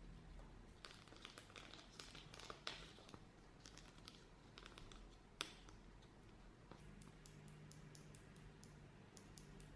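Faint crinkling and clicking as slime-kit materials are handled by hand. A cluster of crackles comes in the first half, with one sharp click about five seconds in, followed by lighter scattered ticks.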